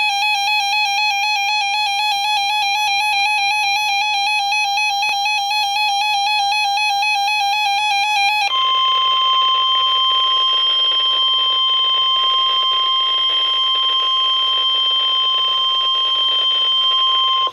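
A warbling electronic alarm tone for about eight seconds, then the steady 1050 Hz Warning Alarm Tone of NOAA Weather Radio, which signals that a warning message follows. The steady tone holds for about nine seconds and cuts off abruptly.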